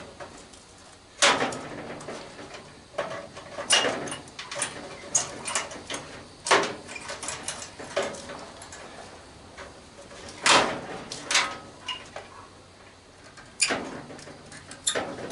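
Metal parts of an old microwave being handled and taken apart: about five sharp knocks or clanks a few seconds apart, with lighter ticks and rattles between.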